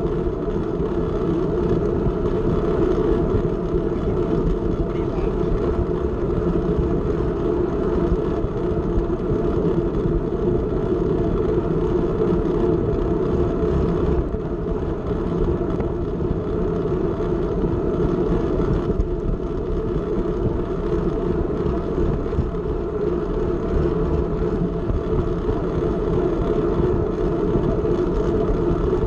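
Steady rush of wind over a camera mounted on a racing track bicycle, with the whir of the tyres and chain on the concrete track.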